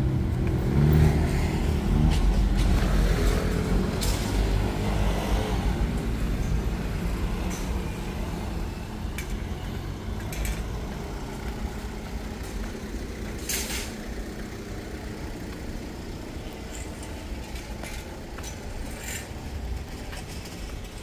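A motor vehicle's engine rumbling loudly at first, then fading steadily as it moves away, with a brief hiss and a few faint clicks later on.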